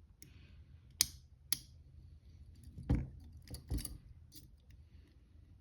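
Metal clicks and knocks of ASP Century handcuffs being worked with a lock pick: two sharp clicks about a second in, then a few duller knocks and small ticks. The cuffs' double lock is being set again by accident.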